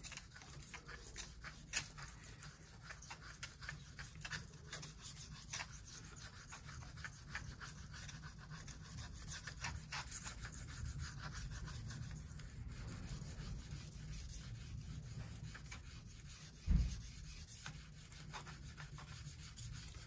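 Steel blade of a single-bevel Victorinox garden knife stroked lightly back and forth on a 1000-grit whetstone, a soft scratchy rubbing, as a burr is raised on the hollow-ground side. One dull knock sounds late on.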